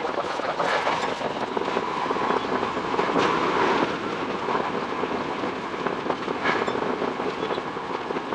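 Running noise from aboard a Tokyo Metro 10000 series electric train, sped up six times: a dense, steady rattle of wheel and track noise with a few sharp clicks.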